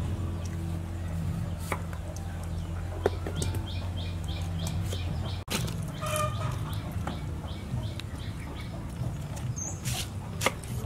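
Birds chirping in quick runs of short, high calls, several a second, over a steady low hum. There are a few sharp knocks, the loudest of them near the end.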